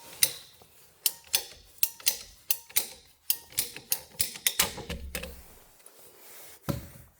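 Ratcheting pipe cutter clicking sharply through PVC furnace vent pipe, about two to three clicks a second and quickening, with a duller low thump about five seconds in and one last click near the end.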